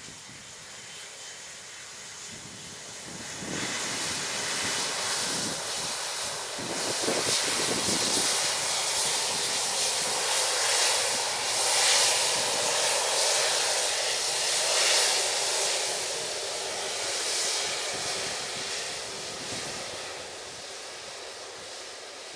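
Jet engines of a Lion Air Airbus A330 airliner rolling past on the runway: a broad rushing roar that swells about three seconds in, is loudest in the middle, then fades as the aircraft moves away.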